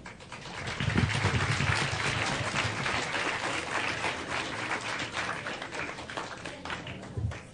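Audience applauding: many hands clapping, building about a second in and slowly tapering off toward the end.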